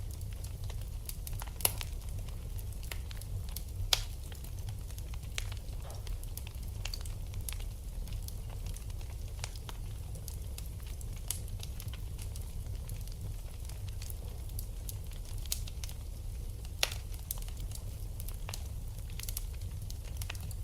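Fire in a fireplace crackling: scattered small pops and ticks over a steady low rumble, with a few sharper pops about two and four seconds in and again near the end.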